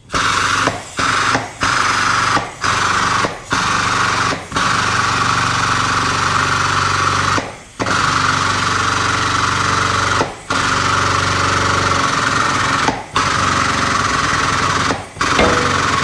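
Frame machine's pump running in long stretches while the tower pulls the collision-damaged front end, cutting out briefly about nine times as it is stopped and restarted.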